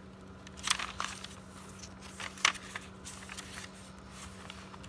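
Tea-dyed paper pages of a handmade journal being turned by hand: short crisp rustles of paper, the two sharpest about a second apart, near the start and about halfway through.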